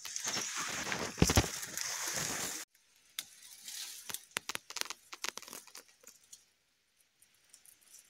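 Dry stalks and leaves rustling and crackling, with a few knocks, as the undergrowth is brushed close to the microphone. The noise cuts off abruptly a little past two and a half seconds in, followed by fainter scattered clicks and rustles that die away to near silence.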